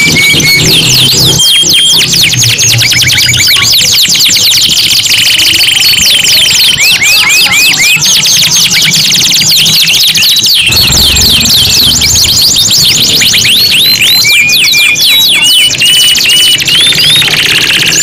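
Three domestic canaries singing over one another: fast rolling trills of repeated rising and falling notes, broken by long held whistles. Loud and continuous throughout.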